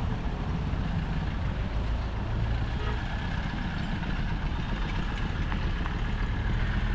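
Road traffic crossing: motorcycle and small four-wheeler engines running as they pass, a steady low sound without distinct events.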